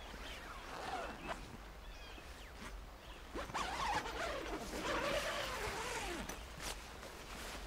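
Quiet woodland lakeside ambience on a film soundtrack, with small bird chirps. About halfway through, a louder wavering call rises and falls for a few seconds.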